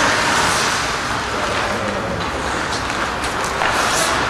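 Ice hockey play in an arena: steady rink noise with skate blades scraping across the ice, one sharper scrape near the end.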